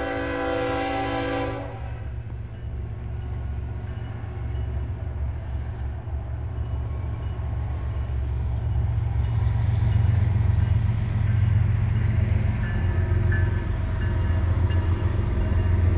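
Freight train horn sounding a steady chord that cuts off about two seconds in, followed by the steady low rumble of the train's cars rolling past, growing louder toward the end.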